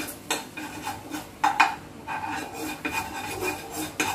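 Metal spoon scraping and clinking against a metal pan while stirring a batch of peanut brittle in jaggery syrup. Irregular scrapes a few times a second, with a sharper knock about a second and a half in and another near the end.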